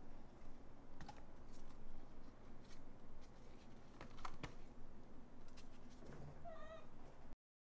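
Scattered light clicks and ticks, then near the end one short high mew from a kitten; the sound cuts off abruptly just after.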